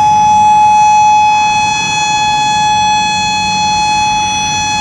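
Federal Signal 5020 Modulator outdoor warning siren sounding its weekly test with a steady, loud, high-pitched tone that holds one pitch with a ladder of overtones above it and swells and eases only slightly in loudness.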